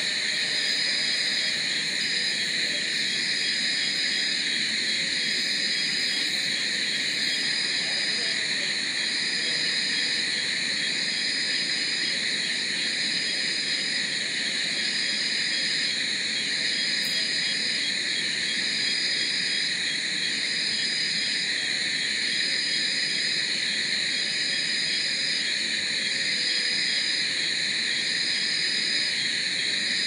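Dense night chorus of crickets and other insects: several layers of steady high buzzing and trilling, with one high call pulsing about once a second.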